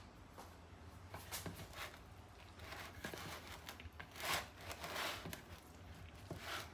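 Soft, irregular scraping and rustling of a spatula stirring shredded chicken and cheese in a mixing bowl.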